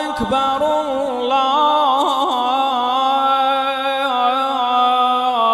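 A male muezzin's voice chanting the Shia call to prayer (adhan), one long held note of the opening takbir with a few quick melismatic turns about two seconds in, stepping down just before the end.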